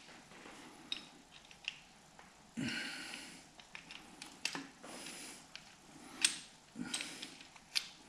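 Several heavy breaths, huffing and puffing, from a man straining at close work, with sharp light metal clicks and taps from the double-row timing chain and its bolts being handled on a Jaguar E-Type engine.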